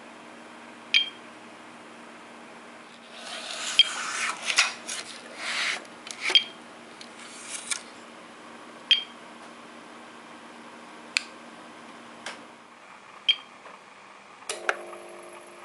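Battery being swapped in an APC SUA750JB UPS: rubbing and scraping of parts being handled, among sharp clicks that come every two to three seconds. A low steady hum cuts out about twelve seconds in, and a new steady hum starts near the end.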